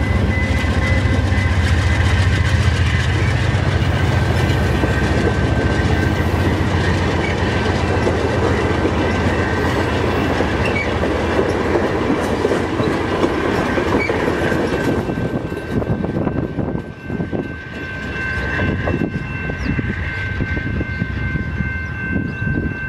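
A GE Genesis P42DC diesel-electric locomotive running past close by with a heavy low rumble, followed by four stainless-steel passenger cars clicking rhythmically over the rail joints. The sound thins out after about fifteen seconds as the last car moves off.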